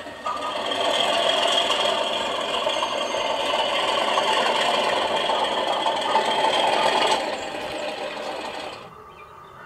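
Sound-fitted OO gauge Accurascale Class 37 model diesel locomotive running past, a steady mechanical rattle of its running gear and sound output. The rattle eases about seven seconds in and falls away near the end as the train moves off.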